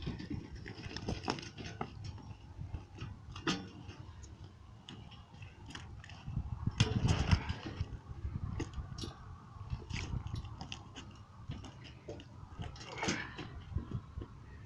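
Scattered knocks, thuds and scrapes as a heavy log round is rocked and tipped onto a metal hand truck, over a low, uneven rumble; the loudest stretch comes about seven seconds in.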